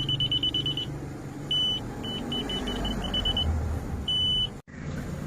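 High-pitched electronic beeping: quick runs of short beeps broken by a few longer single beeps, over a steady low hum. The sound cuts out for an instant near the end.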